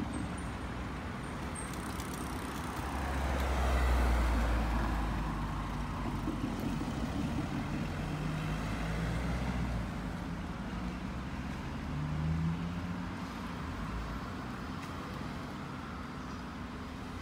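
Road traffic crossing a level crossing: a car passes close with a low rumble that swells and fades about three to five seconds in, and another engine is heard rising briefly near twelve seconds over a steady traffic hum.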